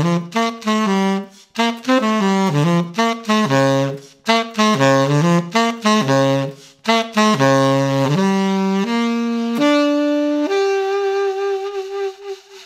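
Tenor saxophone played alone: quick jazz phrases separated by brief breaths, ending on a long held note that fades away.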